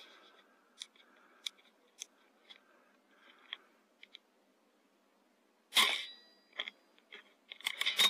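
Faint clicks, then about six seconds in a single sharp, loud pop from a sub-12 ft-lb air rifle being fired at a rat, followed by a brief ringing tone; more loud noise comes near the end.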